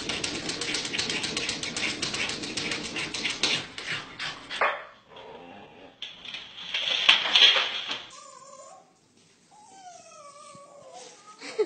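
A dog pawing at a glass door, making a fast, dense rattle for the first three seconds or so. A louder rustling clatter follows around seven seconds in, and then high cries that slide up and down in pitch near the end.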